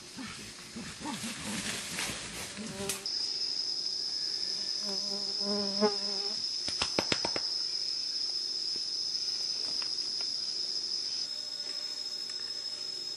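A forest insect's steady high-pitched drone starts abruptly about three seconds in and carries on, dipping slightly in level near the end. Before it come irregular rustling and crackling. About five seconds in there is a short pitched call, followed by a few sharp clicks.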